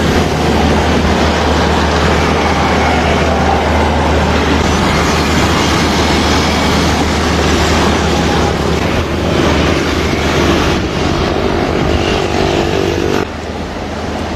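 Long-tail boat's engine running steadily with a strong low hum. Near the end the engine sound drops away, leaving quieter waterside noise.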